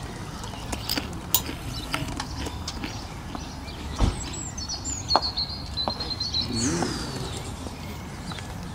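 A croquet mallet strikes a ball once with a sharp wooden knock about four seconds in, followed by a lighter click about a second later.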